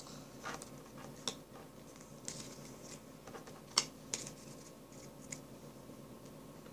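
Faint, scattered clicks and taps of small objects being handled on a tabletop, the loudest a little under four seconds in.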